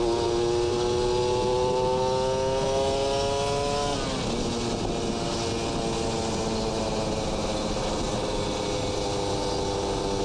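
Kawasaki Ninja RR two-stroke engine through an R9 Neo Mugello carbon racing exhaust, pulling under throttle with its note slowly rising. About four seconds in the note drops suddenly, then holds steady at a lower pitch as the bike rides on.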